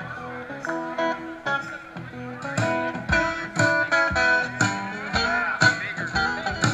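Live acoustic guitars playing a picked, rhythmic passage, filling out and getting louder about two and a half seconds in.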